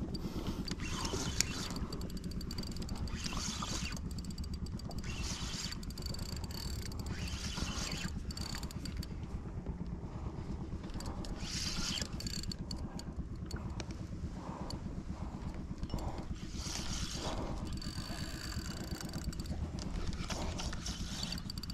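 Small boat's engine running steadily with a low rumble, with short hissy bursts of water or wind noise every second or two.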